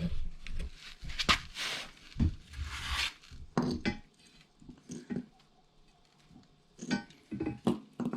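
Metal parts being handled, clinking and knocking against each other, with rustling between the knocks. There is a short pause about two-thirds of the way in, then more clinks near the end.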